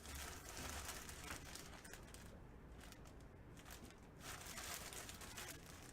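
Faint rustling and crinkling of packaging being handled, in two soft spells, one early and one near the end.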